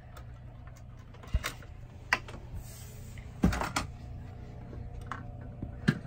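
Scattered plastic clicks and knocks from fire alarm pull stations being handled, over a faint low steady hum.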